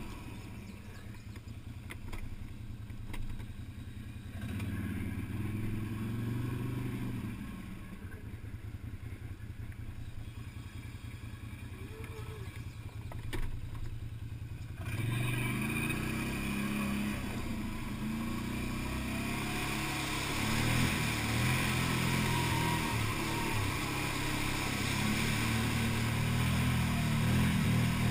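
Can-Am Outlander 650 XT's V-twin engine puttering along quietly at low speed, then pulling harder and louder from about halfway through. Water rushes and splashes around the quad in the last part as it ploughs into a deep water hole.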